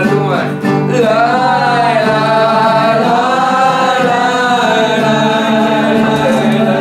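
A man singing to a strummed acoustic guitar, drawing out long held notes.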